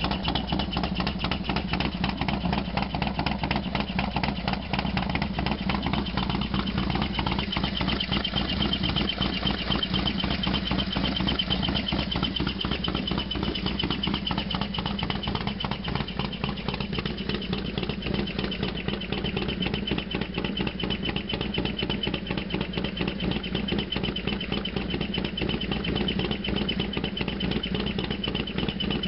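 Harley-Davidson FXDX V-twin engine idling steadily, still warming after a cold start, with a steady high-pitched whine over the idle.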